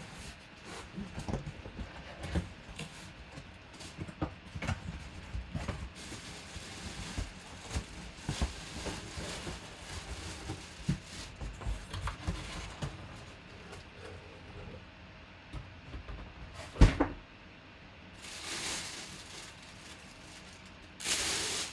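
Cardboard box being handled and opened, with repeated scrapes and knocks, and a bagged full-size football helmet lifted out. One loud thump about seventeen seconds in, then the helmet's clear plastic bag crinkling twice near the end.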